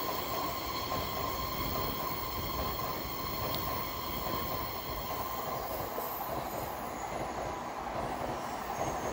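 Shinkansen bullet train passing at speed on the adjacent track: a steady rushing rumble of the train going by, with a faint steady high tone over it.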